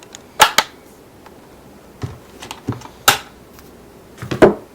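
Handling noise of hard objects: a scattered series of sharp clicks and taps. Two come close together in the first second, a cluster follows about two seconds in, a sharp one comes around three seconds, and a couple more come near the end.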